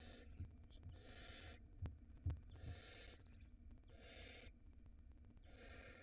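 Barn owl nestlings giving their drawn-out hissing, snore-like begging calls, about five half-second hisses roughly every second and a half. Two short, low knocks come about two seconds in.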